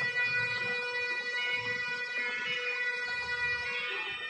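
Bagpipes playing a steady held tone.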